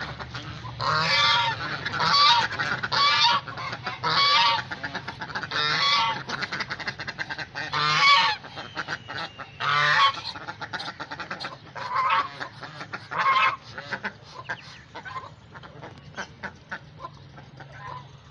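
Domestic geese honking loudly and repeatedly, about nine half-second honks in the first fourteen seconds, then only softer calls. Rapid clicks of bills pecking at grain on the ground run between the calls.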